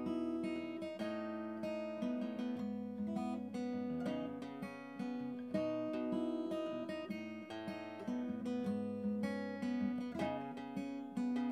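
Background music: acoustic guitar, plucked and strummed notes in a steady, continuous piece.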